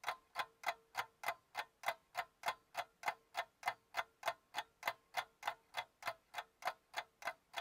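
A clock ticking steadily and quickly, about three ticks a second.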